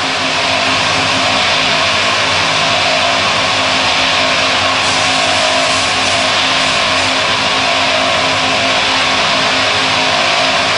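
Automatic car wash machinery running: a steady, loud rushing noise over a constant low hum, with a slightly brighter hiss about midway.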